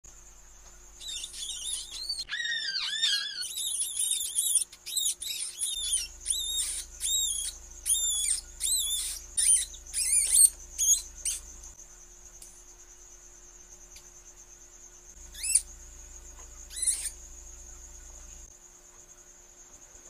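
Newborn mouse pups squeaking: a rapid run of short, high-pitched squeaks that slide up and down for about ten seconds, then two more squeaks several seconds later. A steady high-pitched whine runs underneath.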